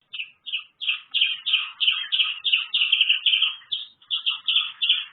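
A bird calling: a rapid run of short, high chirps, about three a second, starting right at the beginning.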